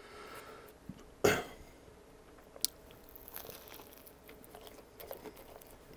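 Biting into a toasted Subway sandwich: one loud crunch about a second in, then softer crackling chewing.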